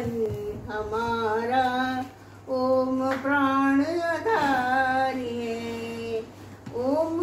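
An elderly woman singing a Hindi bhajan solo, without accompaniment, in long held notes that glide slowly between pitches, with two short pauses for breath.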